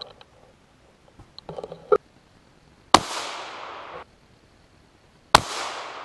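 Two gunshots about two and a half seconds apart, each a sharp crack followed by a long echo fading through the woods. A short run of clicks and knocks comes about a second before the first shot.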